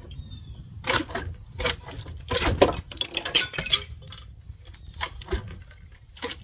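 Hand demolition of wall framing: irregular metallic clanks, clinks and knocks as a hand tool works at old studs and nails. There is a dense cluster of strikes from about one to four seconds in and two more strikes near the end.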